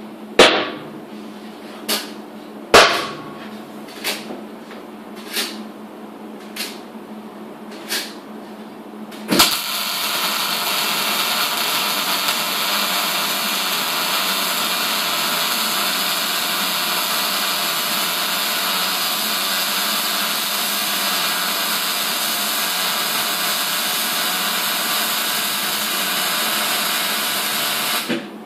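About eight sharp metal knocks, roughly a second apart, then an arc welder running one steady, unbroken weld on the steel hinges with an even hiss for about eighteen seconds, which cuts off sharply near the end.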